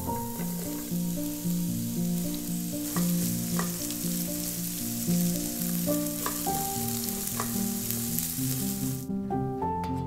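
Sliced red onion sizzling in hot oil in a nonstick frying pan, stirred with a spatula. The sizzle cuts off suddenly about nine seconds in.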